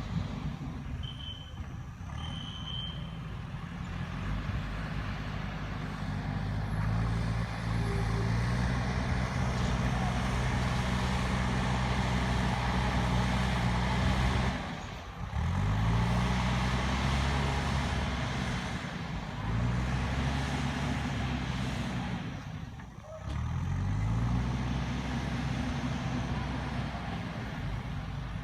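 JCB backhoe loader's diesel engine working under load, revving up and easing off repeatedly, with two brief sharp drops in revs about halfway through and again near the end. Two short high beeps sound a couple of seconds in.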